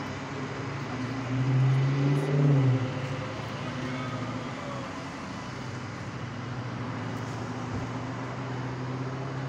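Road traffic with a motor vehicle's engine running, a low steady hum that swells louder about one to three seconds in.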